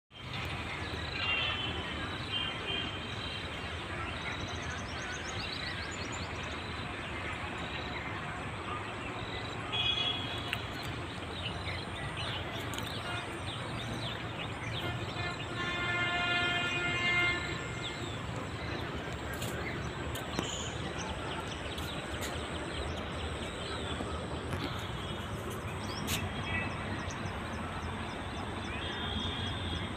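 Outdoor ambience: a steady background rumble, with birds chirping now and then and a longer pitched call about sixteen seconds in.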